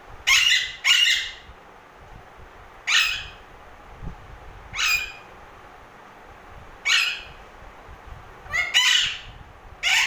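Green parakeet giving short, harsh squawks while it plays at nibbling a finger. There are about seven in all: two quick ones at the start, then one roughly every two seconds, and a close pair near the end.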